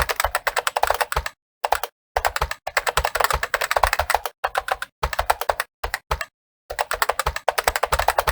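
Fast typing on a computer keyboard: rapid key clicks in bursts of a second or two, broken by short pauses where the sound drops to dead silence.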